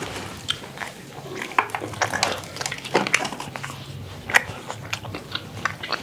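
Chewing and biting: irregular wet clicks and smacks of food being eaten, with one sharper click a little after four seconds. The food is tough and hard to chew.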